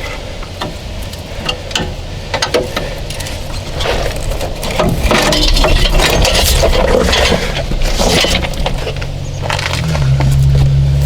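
Irregular metallic clinks and knocks of tools and metal parts being handled, louder from about four seconds in. A steady low hum starts up near the end.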